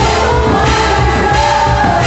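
Loud festa junina quadrilha music with singing over a steady low beat.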